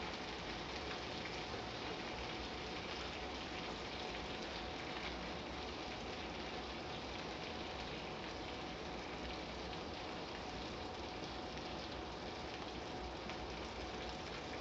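Food frying on a hot grill: a steady sizzle with fine crackling.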